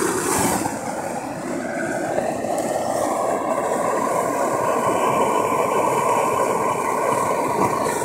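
Gas blowtorch burning at full flame, a steady roar, its nozzle firing into a small brick furnace.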